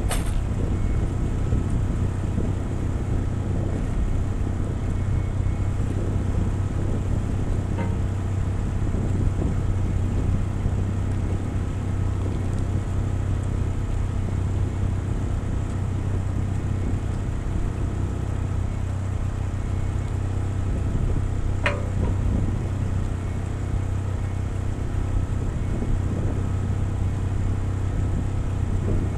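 Case CX75SR mini excavator's diesel engine idling steadily with a low, even hum, its muffler freshly welded back on. A single sharp click sounds about three-quarters of the way through.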